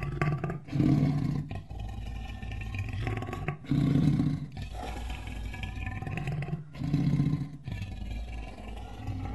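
Lion roaring, a sound effect standing in for the extinct Mosbach lion: three loud roars about three seconds apart, with quieter rumbling between them.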